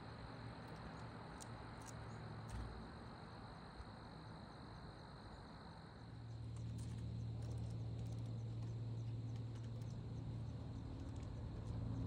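Crickets trilling steadily, a thin high continuous tone. About halfway through, a low steady hum sets in and the overall sound grows louder; a few faint ticks are scattered through.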